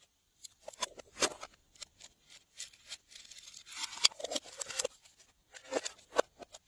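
Glossy slime being squished and worked by hand, making a run of sticky clicks and small pops. A denser squelching stretch comes in the middle, then a short pause and a few more pops.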